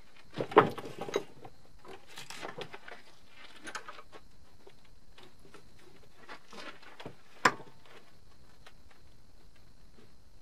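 Hand tools and metal parts clinking and clicking on a portable generator's alternator end as a bolt is worked on. There is a cluster of knocks about half a second in, scattered lighter clicks, and one sharp click about seven and a half seconds in.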